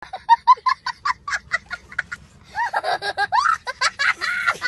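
A young child laughing: quick bursts of laughter about five a second, then longer, higher squealing laughs from about halfway.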